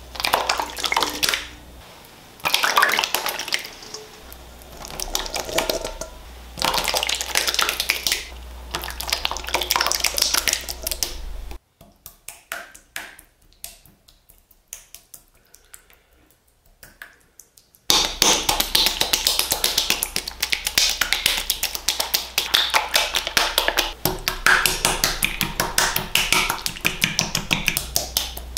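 Clicking and tapping from hands-on pasta-making work, in several busy stretches with a quieter run of scattered clicks in the middle. From about two-thirds of the way through it turns into a fast, steady run of clicks.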